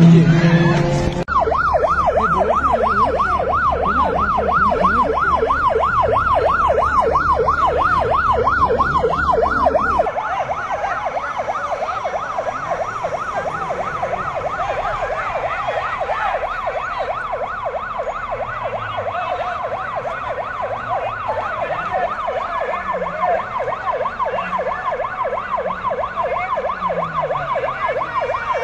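Ambulance siren in a fast, continuous rising-and-falling wail, about five sweeps a second, starting about a second in. About ten seconds in the sound changes abruptly, and the siren carries on a little quieter.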